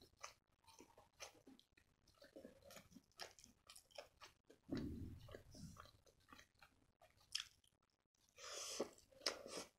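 Soft, close-miked eating sounds: a person chewing and biting lachcha paratha dipped in palak paneer, with many small wet mouth clicks. There is a low thump about halfway through and a louder rustle of chewing near the end.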